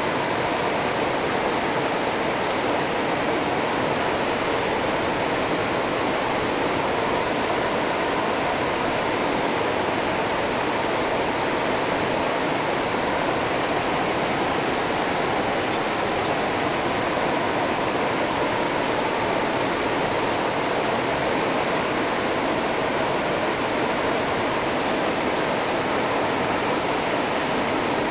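River rapids rushing: a steady, even rush of white water over rocks.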